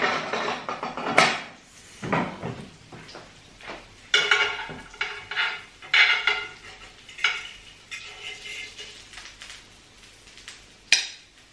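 A metal fork clinking and scraping on a ceramic plate and a stoneware baking tray as a meatball is lifted onto the plate. The clatter comes in several short groups of strokes, some ringing briefly, with one sharp clink near the end.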